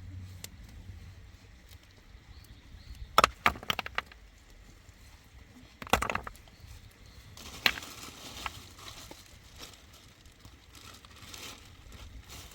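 A few sharp knocks and clatters of things being handled: a quick run of four or five about three seconds in, a louder knock with a short rattle around six seconds, and a single sharp click near eight seconds.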